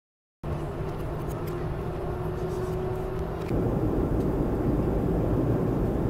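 Airliner cabin noise: the steady drone of the engines and airflow heard inside the plane, starting abruptly and growing louder about halfway through.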